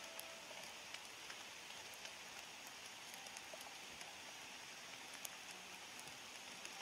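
Faint, steady rain falling: an even hiss with many scattered sharp ticks of individual drops.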